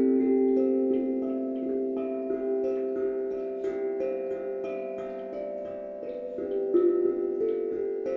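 Calm instrumental music of slow, ringing notes that sustain and overlap, a new note sounding about every second.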